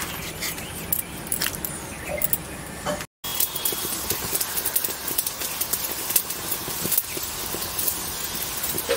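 Steady hiss of outdoor background noise with scattered small clicks and taps. The sound drops out for a moment about three seconds in.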